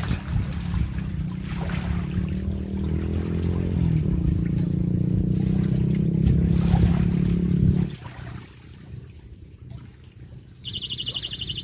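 Spinning reel cranked steadily to wind in line, its gears humming, changing pitch about halfway through and stopping after about eight seconds. A high pulsing buzz starts near the end.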